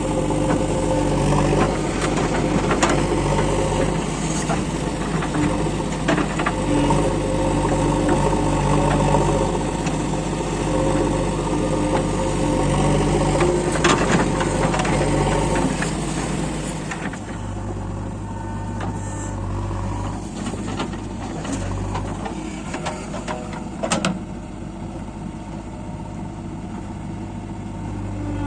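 Diesel engine of a JCB 3DX backhoe loader running under work, with scattered clanks and knocks. It gets quieter about seventeen seconds in, and there is a sharp knock near the end.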